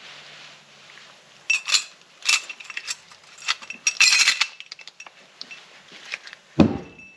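Steel clutch plates of a Supra limited-slip differential clinking against each other and the carrier as they are stacked in. Several light metallic clinks with a brief ring, a quick cluster of them about four seconds in, and a heavier dull knock near the end.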